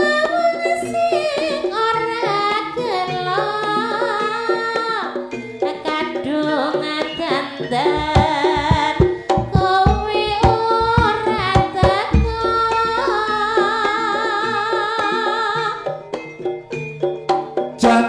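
Live Javanese jaranan ensemble music: a wavering, ornamented melody line over hand-drum (kendang) strokes, with a run of quick drum strokes about halfway through.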